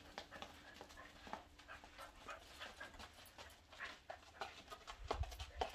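Dog panting while walking in new rubber-soled dog boots, with soft irregular taps of the boots on concrete and thumps near the end.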